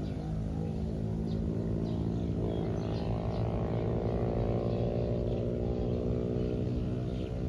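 A motor vehicle's engine passing by: a steady low hum that swells and rises in pitch through the middle and then fades, with faint bird chirps over it.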